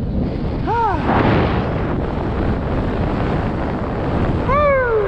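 Airflow rushing steadily over the microphone in flight, with two wordless whoops from the pilot: a short rising-and-falling one about a second in and a longer falling one near the end.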